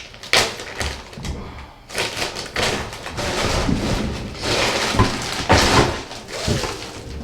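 Wig packaging being handled: irregular rustling and crinkling with a few soft bumps and taps.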